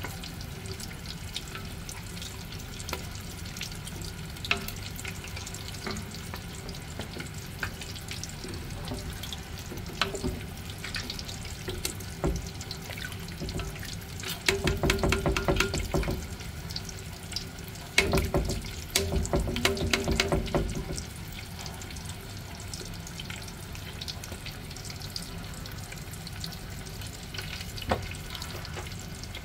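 Pot of taro leaves in coconut milk simmering while it is stirred with a plastic slotted spoon. The spoon scrapes and knocks against the pot, with two louder stretches of stirring about halfway through.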